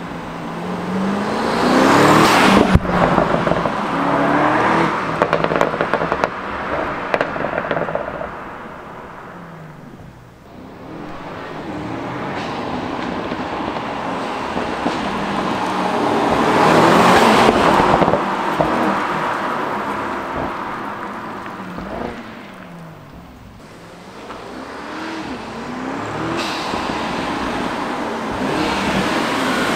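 Mercedes-AMG E63's twin-turbo V8 revving up and down through the gears with its exhaust flaps open in Sport+, getting louder and fainter as the car drives away and comes back past. A few sharp pops from the tuned exhaust sound near the start and again later.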